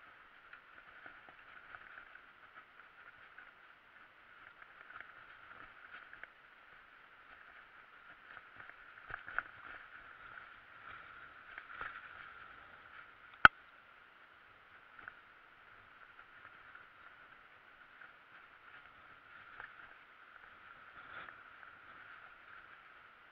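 Mountain bike riding over a dirt and grass trail: a faint, muffled rattling and rustling with small knocks from bumps in the track. About halfway through comes one sharp knock, the loudest sound.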